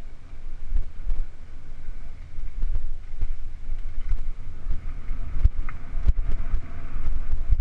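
Mountain bike ridden fast along a dirt forest singletrack: wind buffets the camera microphone with a steady low rumble while the bike rattles over roots and rocks, with a few sharp knocks in the second half.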